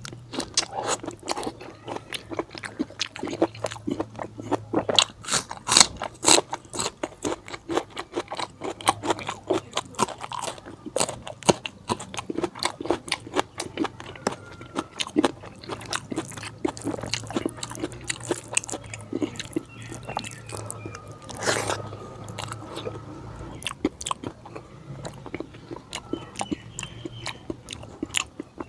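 Close-miked mouth sounds of eating fatty pork curry with rice: continuous irregular chewing, biting and crunching, with one louder sharp click about two-thirds of the way through and a faint low hum underneath.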